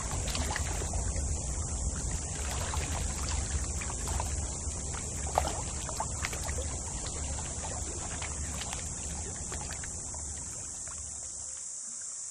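River water lapping and trickling against a moored wooden boat, with scattered small splashes and one sharper knock about five seconds in. Under it runs a steady low rumble, and above it a constant high-pitched insect drone, typical of a tropical riverbank at dusk.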